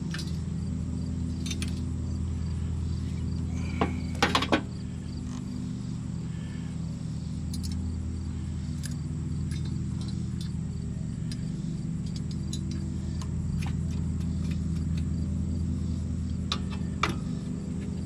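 Sharp metallic clinks of hand tools: a quick cluster about four seconds in and a single click near the end. Under them runs a steady low machine hum.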